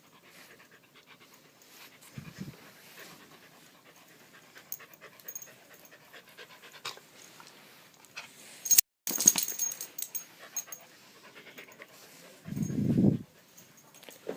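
Beagle panting rapidly in fear, stressed by the smoke alarm. A loud burst of clicks comes about nine seconds in, and a short low sound near the end.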